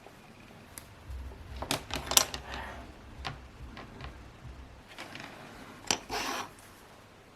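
Irregular clicks and knocks of small hard objects being handled, the loudest about two seconds in and again near six seconds, with a low rumble under the first half and a short rustle near the end.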